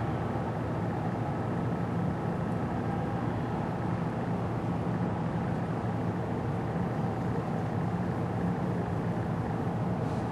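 A steady low mechanical hum that holds the same level throughout, with no sudden sounds.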